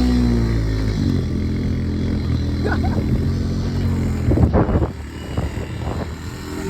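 An ATV engine runs at steady revs, drops to a lower pitch about a second in, and holds there. Short shouts or voice sounds come over it, the loudest about two-thirds of the way through.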